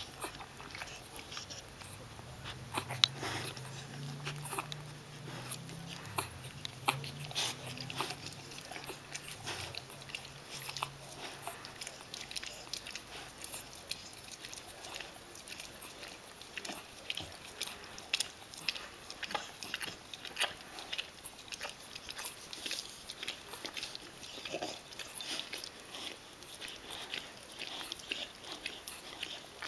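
Miniature Bull Terrier bitch licking and cleaning her newborn puppies: a steady run of short, wet licking and smacking clicks.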